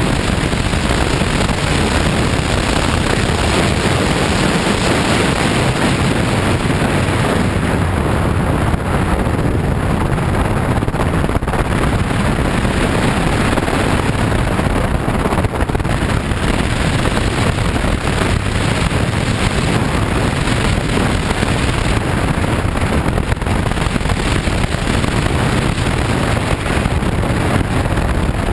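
Riding noise from a BMW F 800 GS parallel-twin motorcycle on a gravel road: steady wind rushing over the camera microphone, mixed with engine and tyre noise.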